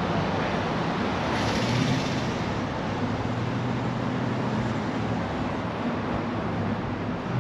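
Suzuki GSX-S750's inline-four engine idling steadily through a Yoshimura AT2 stainless exhaust.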